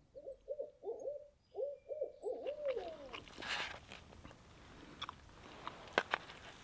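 Owl hooting in two quick runs of arched hoots, the last hoot sliding down in pitch. Scattered clicks and rustling follow from about three seconds in.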